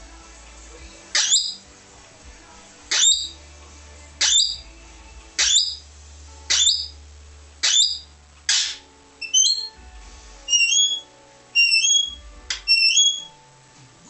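Australian king parrot calling: a series of sharp upward-sweeping shrieks about once a second. About two-thirds of the way through they give way to shorter two-note rising whistles.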